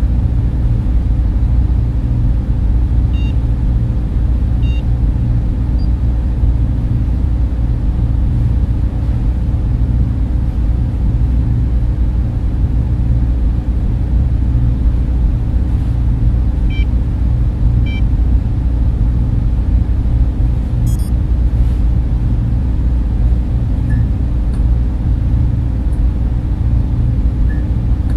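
Steady low rumbling drone of a sci-fi ambience, with a few faint short electronic beeps now and then.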